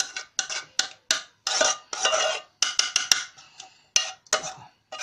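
A spoon scraping and knocking against a pot in a quick, uneven series of strokes, a few of them longer scrapes about two seconds in. The spoon is working thick homemade ketchup out of the pot into a funnel.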